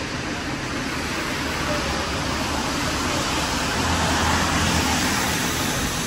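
Street traffic on a wet road: a steady hiss of tyres and engines that swells about four seconds in as a vehicle passes.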